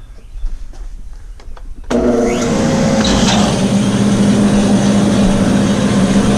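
Woodshop machinery switched on about two seconds in: the thickness planer's motor and its dust extraction start suddenly, with a brief rise as they spin up, then run steadily with a strong hum and rushing air.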